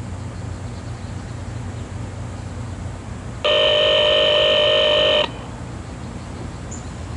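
A steady electronic tone of several pitches at once, loud and sharply on and off, sounding for about two seconds from about halfway through: a tone over a railroad scanner radio. A low steady rumble underneath.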